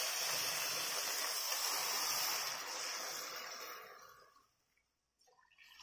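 Hot water poured from a steel saucepan into a frying pan of sautéed onions and tomato: a steady splashing pour that tails off and stops about four seconds in.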